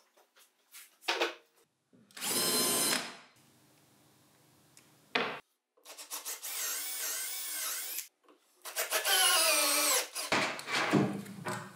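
A few light knocks of plywood frames being handled on a wooden workbench, then a cordless drill running three times as a twist bit bores holes into a plywood frame, the motor's pitch wavering under load.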